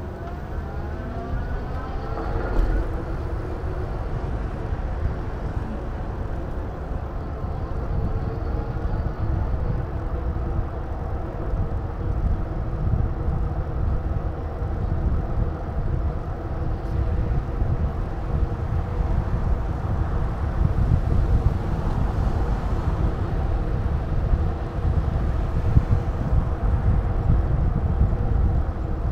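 Wind buffeting a moving microphone with an uneven rumble, over a steady droning hum of motor traffic. In the first couple of seconds a whine rises in pitch, as of a passing vehicle.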